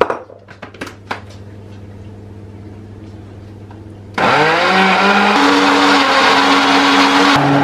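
A few light clicks as the lid goes onto a countertop blender jug. About four seconds in, the blender starts with a rising whine and runs loud and steady, its pitch stepping up twice as it blends chopped bananas, eggs and sugar into batter.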